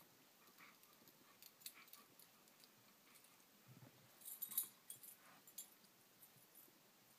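Faint scuffling and light clicks as a Samoyed puppy wrestles a rubber lattice treat ball on carpet and works its paw free. A brief cluster of louder clicks comes about four and a half seconds in.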